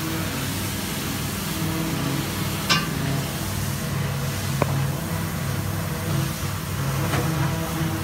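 Tractor engine running steadily at idle, with two short clicks about three and four and a half seconds in.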